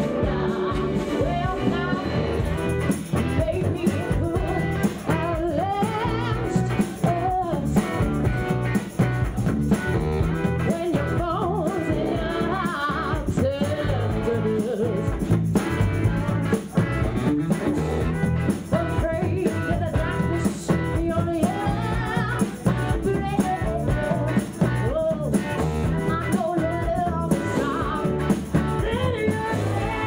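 Live band playing a rock-soul number: a woman singing lead over electric guitar and drum kit.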